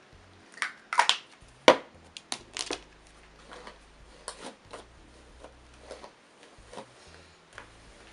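Hairbrush strokes through long hair, a series of short soft brushing sounds. A few louder rustles and one sharp click in the first couple of seconds.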